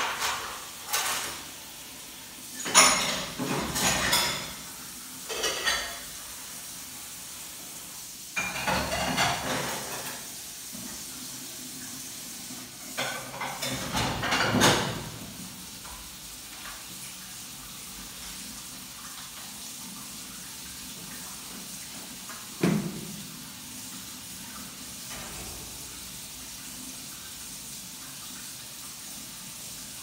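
Dishes, pots and cutlery clattering as they are handled at a kitchen sink, in several bursts over the first fifteen seconds. One sharper knock with a short ring follows a little after twenty seconds, over a steady low hiss.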